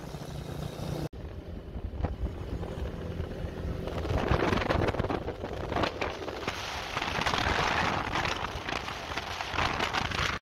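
Motorcycle engine running at road speed, with wind buffeting the microphone that grows much louder from about four seconds in. The sound drops out briefly about a second in and cuts off abruptly near the end.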